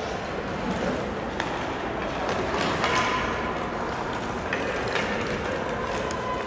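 Sled hockey play on ice: a few sharp clicks and knocks of sticks, sled picks and puck on the ice over steady rink noise.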